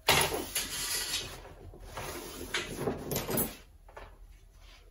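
Handling noise from a disassembled antenna's thin wire elements, copper coils and white insulators being slid and lifted across a wooden worktop: rustling, scraping and light clatter. It starts suddenly, with more clatter about two and a half to three and a half seconds in, then dies down in the last second or so.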